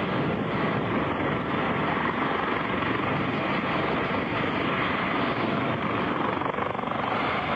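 Harbin Z-9 helicopter, a Dauphin-type with twin turboshaft engines, running close by on the ground and lifting off: steady rotor and turbine noise.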